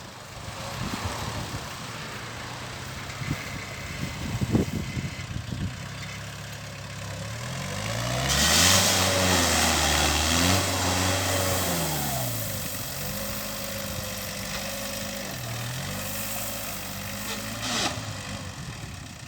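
Concrete mixer's engine running, revving up about eight seconds in with a loud rushing noise, then easing back after about four seconds to a steady run.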